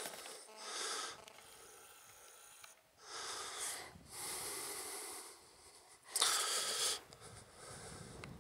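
Heavy breathing close to the microphone: four hissing breaths in and out, spaced a second or two apart, the last one, about six seconds in, the loudest.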